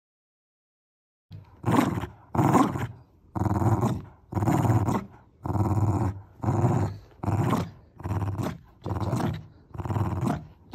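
Shiba Inu growling in play while tugging a chenille toy: a rhythmic series of about eleven gruff 'garururu' growls, roughly one a second, starting just over a second in.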